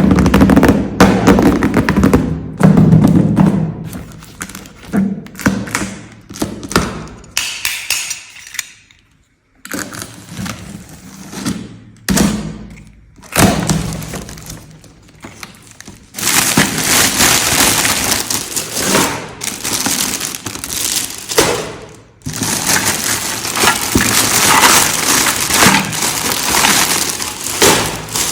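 Small plastic toy kitchen pieces being handled during unboxing, knocking and clicking against each other and the packaging. From about sixteen seconds in, and again a little later, a dense stretch of crinkling, like plastic wrap or packaging being handled.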